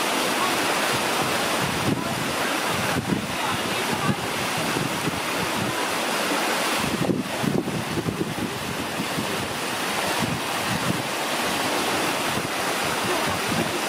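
Steady rushing noise with irregular low gusts of wind buffeting the microphone.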